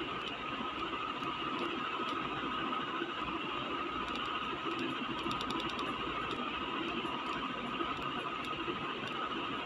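A steady mechanical whirring with a constant high whine and scattered faint ticking.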